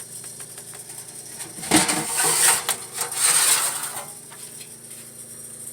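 Hard objects clattering and scraping against each other inside a refrigerator for about two seconds, starting a couple of seconds in, with lighter clicks and knocks around it.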